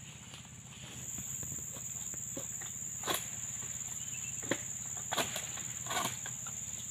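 Steady high-pitched drone of insects, with a few sharp knocks in the second half.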